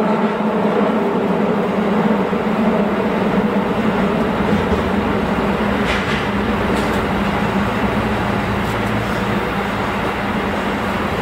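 Tokyo Metro 16000 series subway train running through a tunnel, heard from inside the front cab: a steady hum of several tones fades over the first few seconds while the low rumble of wheels on rail grows, with a brief click about six seconds in.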